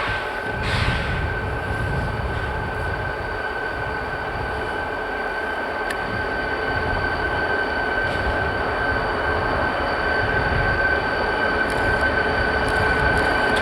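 Freight train rolling past, its cars rumbling over the rails, with a steady high-pitched whine above the rumble.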